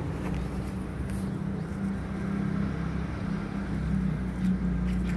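Steady low engine hum of a running motor vehicle, with a few faint clicks over it.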